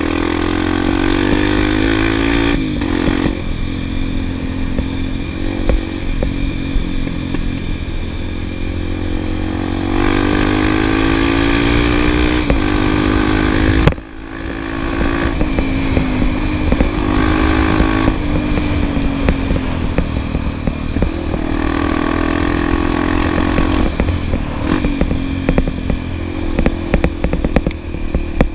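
Single-cylinder dual-sport motorcycle engine running while riding a dirt road, its pitch climbing as it pulls through the gears and dropping at each shift, with wind rumbling on the helmet-mounted microphone. A sharp knock sounds about halfway through.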